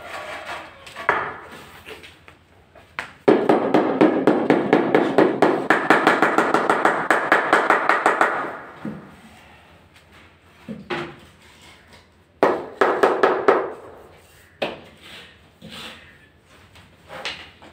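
Rubber mallet striking a large ceramic floor tile to bed it into the tile adhesive. There is a fast run of about four or five blows a second lasting about five seconds, then a shorter run of blows, with a few single knocks between.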